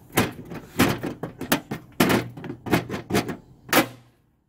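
An irregular run of about ten sharp knocks and clacks: the plastic snorkel body tapping against the sheet-metal fender of a Jeep Cherokee XJ as it is pressed into place.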